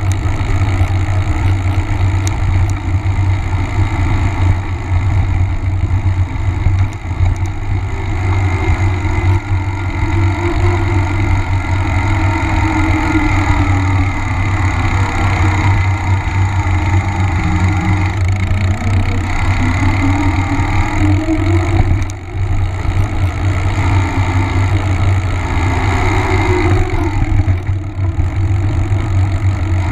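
Mountain bike riding on pavement: knobby tyre rolling noise with heavy wind rumble on the camera microphone, and a hum that slowly rises and falls in pitch with speed.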